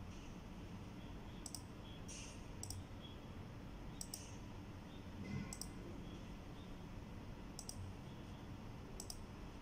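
Computer mouse button clicks, each a quick press-and-release pair, about six of them spread unevenly, as dialogs in a management program are opened and closed.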